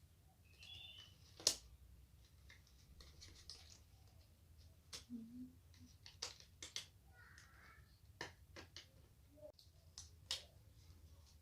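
Faint, scattered clicks, taps and light rustles of small items being handled, the sharpest click about one and a half seconds in.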